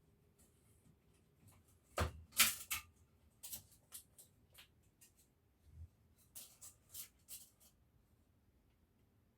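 A series of short, sharp knocks and clatters in a few irregular clusters, the loudest about two seconds in and another group near the end, like hard objects being handled and set down on a workbench.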